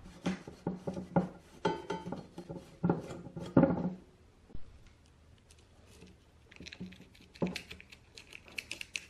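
A cloth rubbing over bare metal speaker frames on a wooden table, with scrapes and knocks as the frames shift, for about four seconds. After a short lull, fingers working at the centre of a frame make quick light scratching and ticking sounds.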